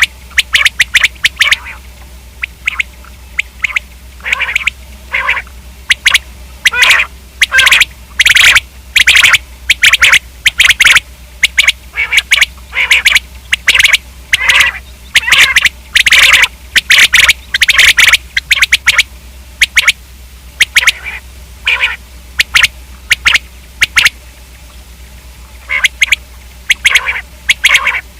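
Common quail calling over and over: loud, short, sharp notes in quick clusters, with a pause of a few seconds near the end.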